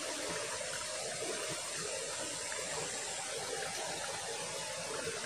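Steady outdoor background hiss with no distinct events, and a faint steady high-pitched band running through it.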